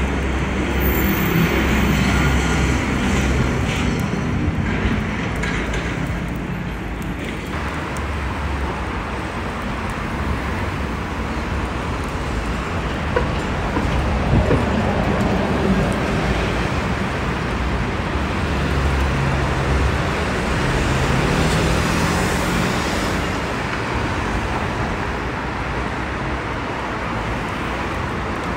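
City street traffic: cars and other motor vehicles passing, a steady hum of engines and tyres.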